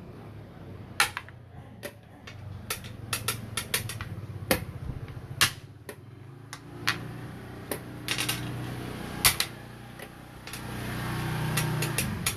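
Xiangqi pieces clacking onto a wooden board and chess-clock buttons tapped in quick play: a run of sharp, irregular clicks and knocks over a low steady hum.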